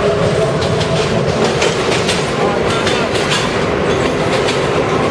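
Vintage IRT Low-V subway cars running past at close range: wheels clacking over rail joints, with a steady hum from the moving train.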